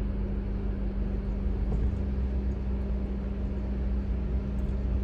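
Car running, a steady low rumble with a steady hum.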